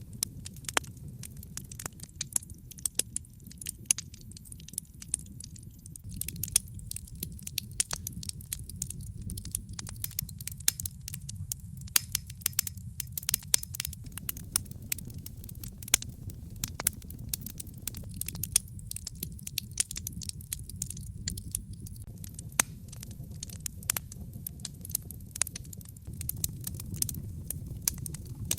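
Fire crackling in a fireplace: frequent irregular sharp pops and snaps over a steady low rumble.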